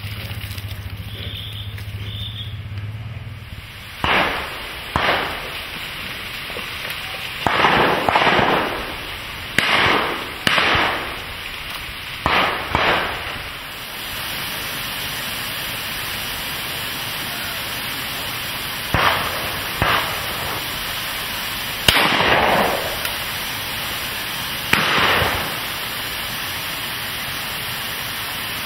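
Shotguns firing: about fourteen sharp shots, many in quick pairs a second or less apart, each ringing briefly, over a steady hiss.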